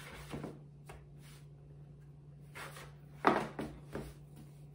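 Plastic dough scraper cutting through brioche dough onto a floured countertop, with short knocks against the counter: a soft one at the start, a sharp one a little over three seconds in, and two weaker ones just after.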